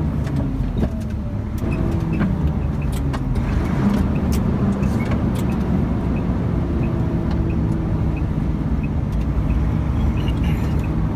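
Truck engine running, heard from inside the cab while driving. Its pitch dips and rises in the first few seconds as gears are changed, then holds steady.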